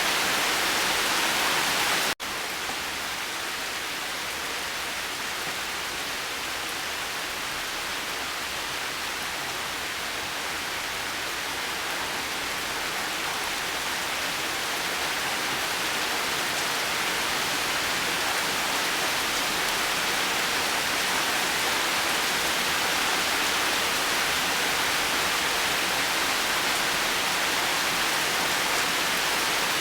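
Heavy rain falling steadily, a dense even hiss. About two seconds in it cuts out for an instant, then resumes a little quieter and slowly builds again.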